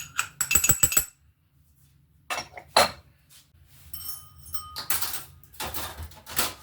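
A spoon knocking and clinking against a bowl as sugar is spooned in with custard powder. There are a cluster of sharp ringing clinks in the first second, more about two to three seconds in, and a longer scraping rustle near the end.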